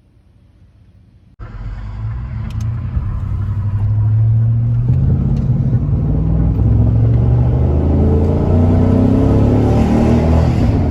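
Chevrolet Silverado pickup accelerating, its engine note climbing as the truck gathers speed on the freshly rebuilt 4L60E automatic transmission. The engine cuts in suddenly about a second and a half in and grows louder over the following seconds.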